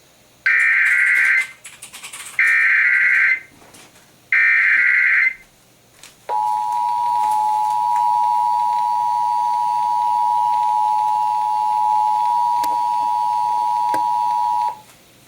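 Emergency Alert System test signal: three one-second bursts of the SAME data header (the screeching digital 'burps' that encode the alert), then the EAS two-tone attention signal, a steady dual tone held for about eight seconds before it cuts off.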